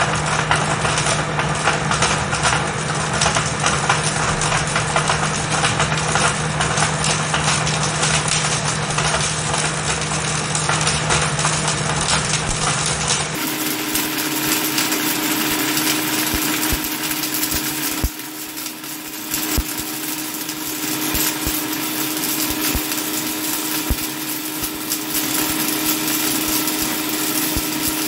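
Countertop blender motor running at speed, with ping-pong balls clattering against the plastic jar as they are smashed into fragments. About halfway through the motor's hum jumps abruptly to a higher pitch and the shredded plastic pieces whirl around the jar.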